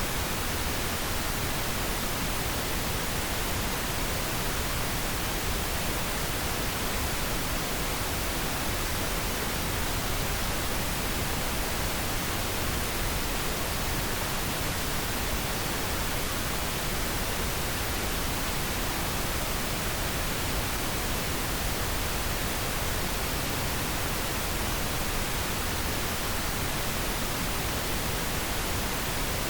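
Steady pink noise: an even, unchanging hiss spread across the whole range, with no tones or breaks.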